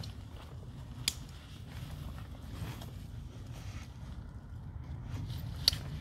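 Two sharp clicks of backpack strap buckles snapping shut, one about a second in and a louder one near the end, amid faint rustling of straps and clothing over a low steady rumble.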